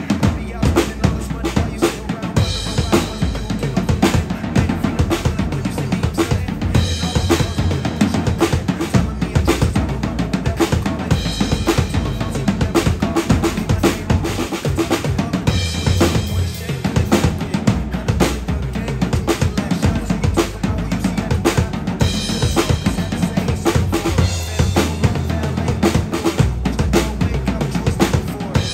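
Acoustic drum kit played in a steady pop groove, bass drum and snare with cymbals, over a recorded backing track of the song.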